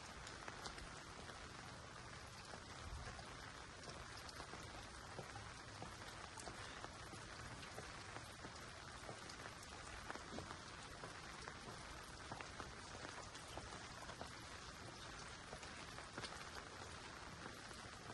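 Faint, steady patter of light rain: an even hiss dotted with many small drop ticks.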